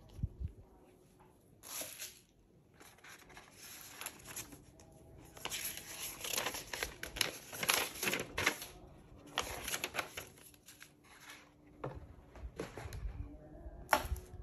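Packing paper and cardboard rustling and crinkling as they are handled in a series of irregular bursts, busiest in the middle. A sharp knock near the end.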